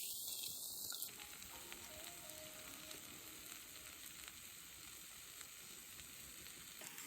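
Food frying and sizzling in hot oil, a steady crackling hiss, a little louder in the first second.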